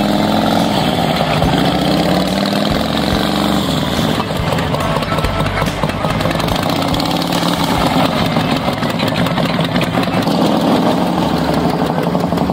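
V-twin police motorcycle engine running near by, its pitch rising and falling in the first few seconds as the throttle is worked, then idling steadily.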